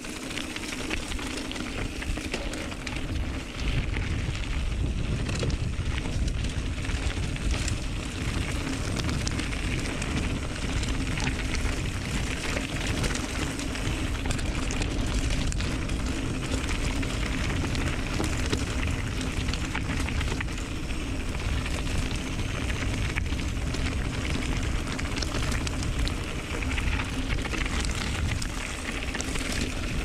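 Mountain bike being ridden on a dirt trail, heard from a camera mounted on the bike or helmet: a steady rumble of tyres over dirt and stones mixed with wind on the microphone, and frequent small rattles and clicks from the bike.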